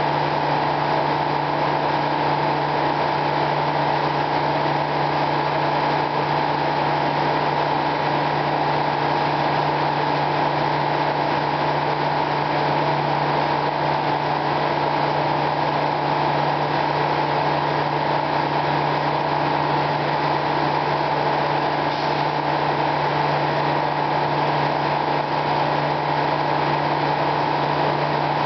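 Circular sawmill machinery running steadily: the large headsaw and its drive give a constant hum with no change in pitch or level.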